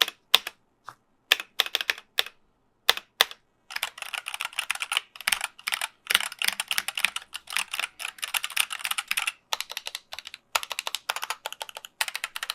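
Keychron K8 mechanical keyboard being typed on: a few separate key presses, then fast continuous typing from about four seconds in, broken by a couple of short pauses.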